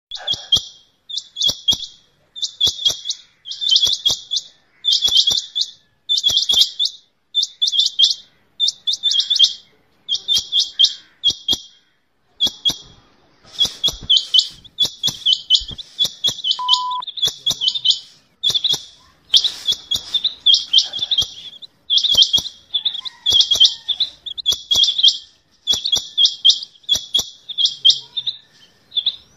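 Rain quail calling: short bursts of rapid, high metallic notes, repeated about once every second and a quarter. From about 13 seconds in, the bursts come closer together and run almost continuously.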